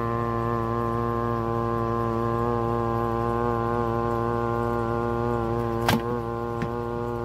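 A steady, low droning hum standing in for a hydraulic press motor runs throughout while a hand squeezes a green chili pepper. About six seconds in, the pepper gives a sharp crack as it bursts, followed by a fainter click.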